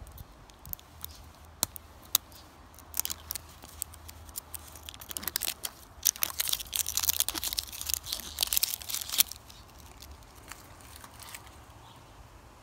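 Crinkly printed wrapper being torn and peeled by hand off a plastic surprise egg: scattered crackles at first, then a dense run of crinkling from about five to nine seconds in, which stops once the egg is bare.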